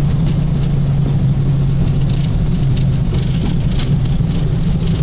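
Boeing 737-800 cockpit noise during touchdown and landing roll: a steady, loud rumble of airflow and engines with a strong low hum, and scattered faint ticks.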